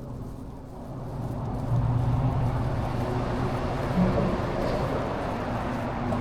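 Motor vehicle engine running close by with road noise: a steady low hum that grows louder over the first two seconds and then holds.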